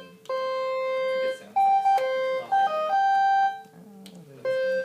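SammichSID synthesiser, built on two Commodore 64 SID sound chips, playing a short tune of single notes: a held note, then quicker notes hopping between a higher and a lower pitch, and one more note near the end. It has the classic Commodore 64 game-music sound.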